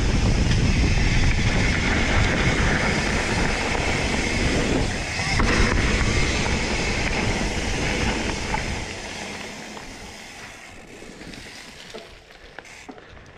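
Wind rushing over the microphone of a mountain bike's handlebar camera, with the tyres rolling on a dirt trail during a fast descent; it is loud for about nine seconds, then fades away.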